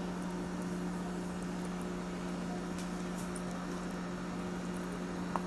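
Steady low hum with a faint hiss, and a few faint light clicks about three seconds in and near the end.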